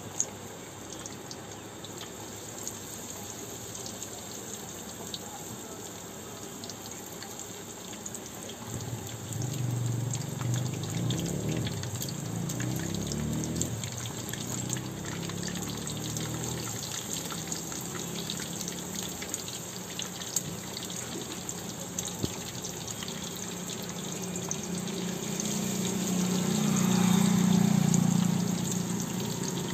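Battered chicken lollipops deep-frying in hot oil in an iron kadai, sizzling steadily with many small crackles. A low hum joins about a third of the way in and swells loudest near the end.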